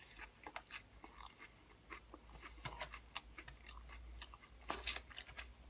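Faint chewing and crunching of a mouthful of lettuce salad, with scattered light clicks.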